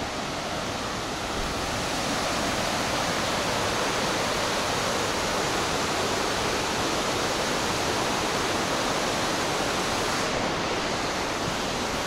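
Steady rush of falling water from the Cascade du Dard waterfall and its mountain stream, an even, unbroken noise that grows a little louder about a second and a half in.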